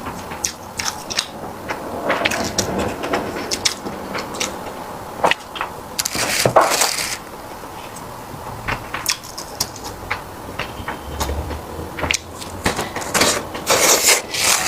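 Close-up eating sounds: chewing with many irregular wet mouth clicks and smacks.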